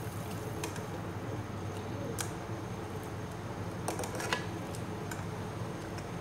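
A metal ladle stirring a pot of hot broth in an aluminium pot, with a few light clicks and scrapes of the ladle against the pot about two seconds in and around four seconds, over a steady low hum.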